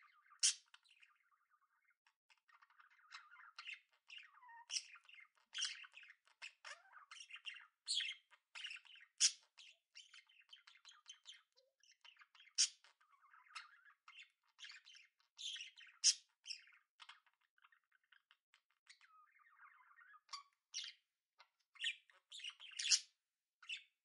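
Budgerigars chattering: a steady stream of short, sharp squawks and chirps, with quieter warbling in between.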